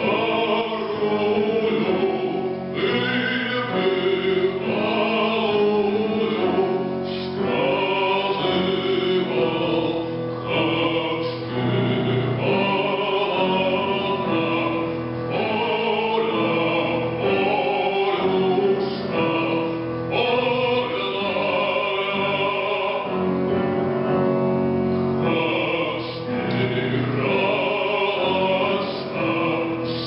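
Music: a man singing a song in a trained voice, with long held notes.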